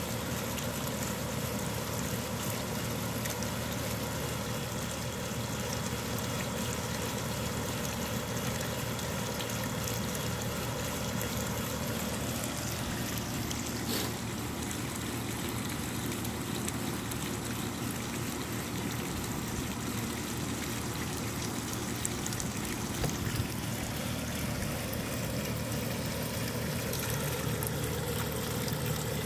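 Small pond fountain with a clear bell-shaped head running steadily, water splashing and trickling back into a koi pond, with a low steady hum underneath.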